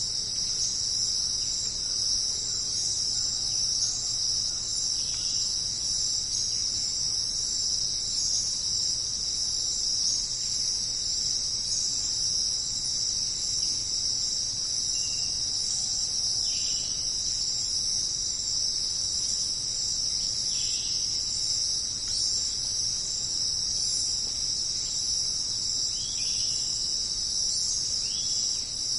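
A dense, steady, high-pitched chorus of crickets and other insects. A few short calls break in now and then.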